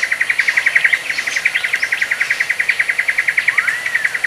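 Wild animal calls: a rapid, even pulsing call, about ten pulses a second, with a single rising whistle near the end.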